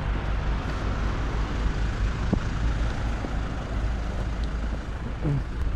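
Steady low rumble of road traffic, with a couple of faint clicks about two and three seconds in.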